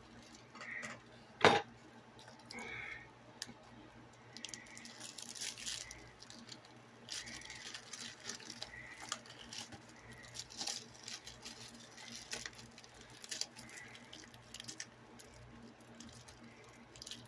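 Handling of an opened plastic 4K Blu-ray case and its contents: one sharp click about a second and a half in, then quiet scraping, tapping and rustling.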